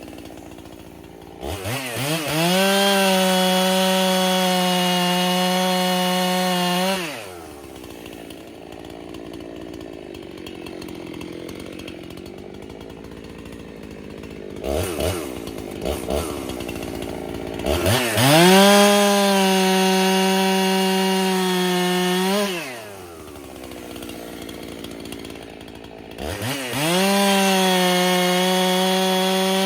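Freshly rebuilt Husqvarna 371 two-stroke chainsaw, a base-gasket-delete build with the stock muffler, being broken in. It runs up to full throttle and holds a high, steady pitch for several seconds at a time, three times, dropping back to idle in between.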